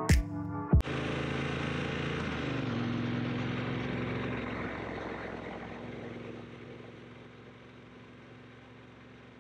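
Triumph T120's parallel-twin engine running steadily, growing fainter over the last few seconds. Music with drum hits ends under a second in.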